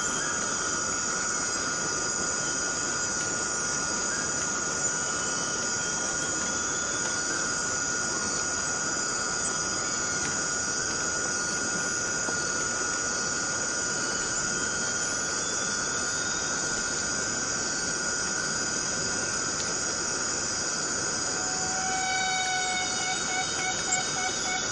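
Forest cicadas calling in a dense chorus: a steady, unbroken, high-pitched drone with a fainter steady tone beneath it. Near the end, a second pulsing call joins in.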